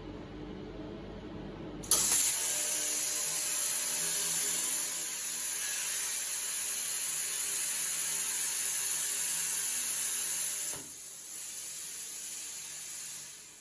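CNC plasma cutter's torch arc cutting metal: a loud, steady hiss that starts suddenly about two seconds in and cuts off near eleven seconds, followed by a quieter hiss that dies away near the end.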